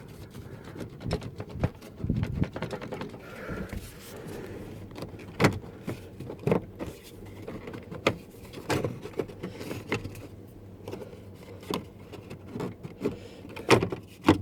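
Plastic interior trim piece being pushed and worked back into place by hand: irregular clicks, knocks and rattles, the sharpest snaps about five seconds in and just before the end.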